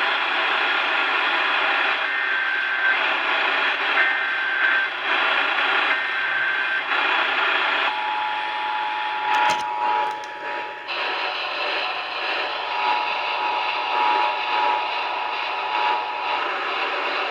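Emergency Alert System broadcast received over a radio with heavy static hiss. Three short data bursts of the alert header sound about two seconds apart. Then comes the steady two-tone attention signal, which drops out for a moment and resumes.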